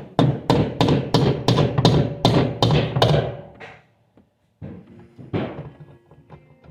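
A quick, even series of about a dozen hard thuds, roughly three a second, stops suddenly. After a short dropout, music with sustained notes plays at a lower level.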